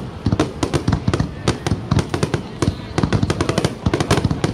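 Fireworks finale: a rapid, near-continuous barrage of overlapping bangs as many shells burst at once, several reports a second.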